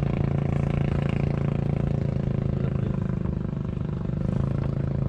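Outrigger fishing boat's engine running at a steady speed, an even drone that does not change.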